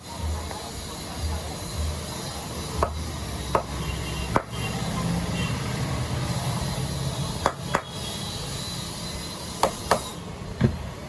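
Sharp knocks and taps on a rewound ceiling-fan stator as it is handled for testing, about eight of them, several in quick pairs, over a steady low hum.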